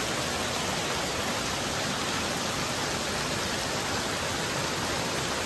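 Heavy rain pouring down steadily on a street, an even hiss.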